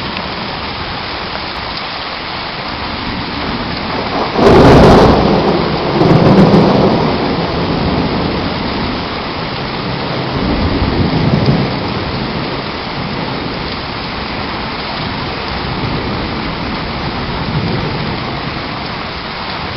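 Heavy rain pouring steadily in a thunderstorm. A sudden, loud clap of thunder comes about four seconds in, followed by lower rolling rumbles of thunder a few seconds later.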